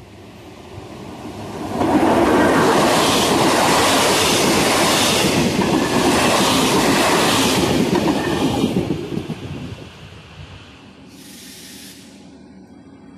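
A passenger express hauled by a ČD class 362 electric locomotive passes at speed. The sound builds as the train approaches, rises sharply as the locomotive goes by, and holds for several seconds of coach wheels and rail noise before fading. Near the end there is a short burst of hiss.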